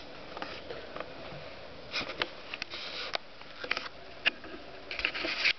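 Kitten sniffing and nosing about close to the microphone: a scatter of short, soft sniffs and rustles, busiest in the second half, with a longer rush of sniffing near the end.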